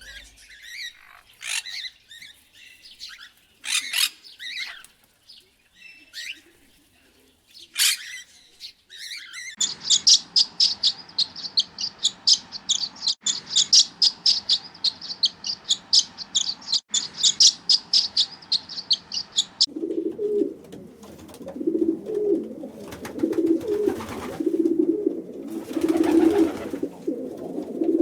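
Bird calls in three cut-together clips. First come scattered sharp high calls, then about ten seconds of fast, high, rapidly repeated chirping. Last is a series of low pulsing calls, about one a second.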